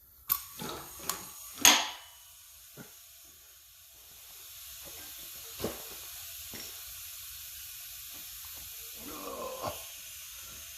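A few clicks and a sharp clack from fittings being handled, then compressed air hissing steadily through a leak-down tester into a cylinder of a 5.7L Vortec V8, starting about four seconds in. The cylinder is holding pressure well, with low leakage.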